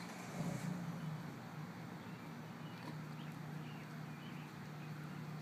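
Outdoor street ambience with a steady low hum at one constant pitch, like a running engine or machine, and a few faint light ticks.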